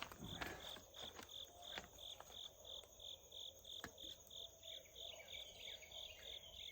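Night insects chirping in an even pulse of about three chirps a second, over a steady high whine. A second insect trills more quickly near the end. A few faint clicks come in the first couple of seconds.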